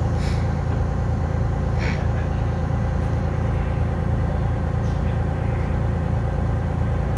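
Detroit Diesel 6V71N two-stroke V6 diesel idling steadily, heard inside the bus cabin.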